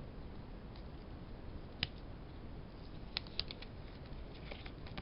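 Trading-card booster pack wrapper being worked open by hand: a few faint crinkles and sharp clicks, one about two seconds in and a pair just after three seconds.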